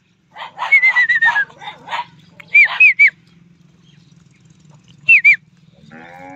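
Birds calling: a quick run of short chirps about a second in, then three sharp rising-and-falling calls near three seconds in and two more about five seconds in. Steady sustained tones begin just before the end.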